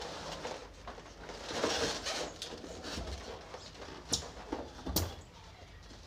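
A foam packing insert is scraped and lifted out of a new washing machine's plastic tub, with a rustling scrape about a second and a half in and two sharp knocks near the end.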